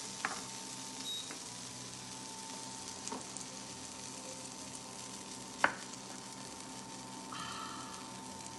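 Butter sizzling gently in a cast iron pan as a grilled cheese sandwich fries over low heat, with a few light clicks, the sharpest about five and a half seconds in.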